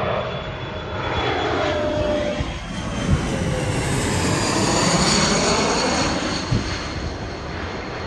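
Mitsubishi CRJ-200 regional jet passing low overhead on landing approach. Its two rear-mounted turbofans give a whine whose tones sweep in pitch as it goes by, loudest about halfway through, over a gusty wind rumble.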